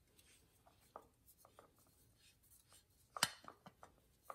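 Faint small clicks and scrapes of an R-134a refrigerant can being threaded by hand onto the brass coupling of a can-tap hose, with one sharper click a little after three seconds and another near the end.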